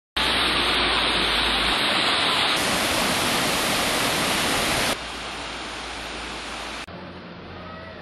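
Waterfall water rushing down rock as a steady, loud hiss of falling water. It drops abruptly to a quieter level about five seconds in, and again near seven seconds, as it changes from one fall to another.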